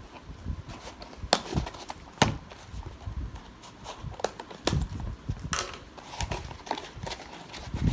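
Irregular knocks, taps and scrapes of a cardboard parcel being handled, a sharp click every second or so.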